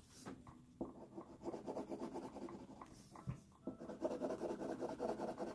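Pencil shading on paper: fast back-and-forth strokes scratching across the sheet as a cast shadow is filled in, growing louder about two-thirds of the way through.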